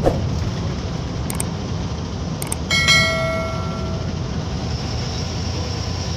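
A bus's diesel engine and road noise rumbling steadily from inside the driver's cabin. Over it come a couple of sharp clicks and then a single bell ding about three seconds in, ringing out over a second. These are an added subscribe-button sound effect.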